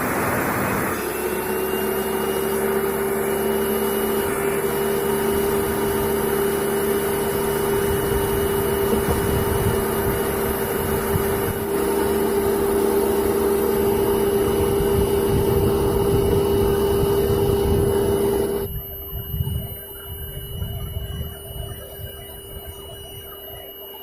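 Table saw running with a steady whine. A rush of noise in the first second gives way to the even running tone, and the sound drops sharply about three-quarters of the way through, leaving a fainter whine.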